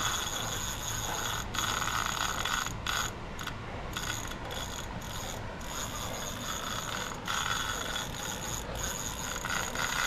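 Fishing reel running with a steady ratcheting whir while fighting a large hooked arapaima, broken several times by brief pauses.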